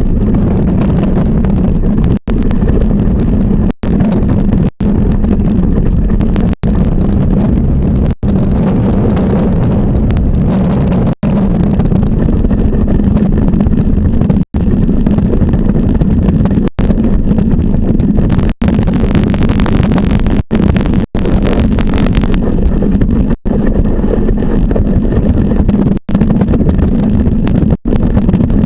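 Iceboat sailing at speed: a loud, steady rumble of its runners on the ice mixed with wind on the microphone, broken by many very brief dropouts.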